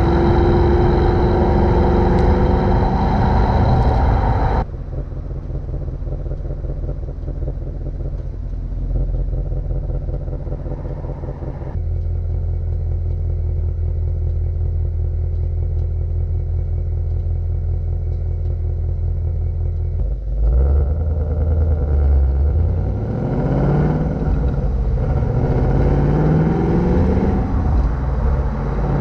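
Ford Mustang GT's V8 exhaust in a run of short clips: running at higher revs at first, then idling steadily, then accelerating with the pitch rising twice near the end.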